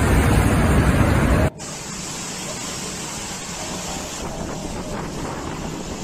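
Storm-force wind buffeting the microphone, a loud, dense rush that cuts off abruptly about one and a half seconds in. A quieter, steady wind hiss follows.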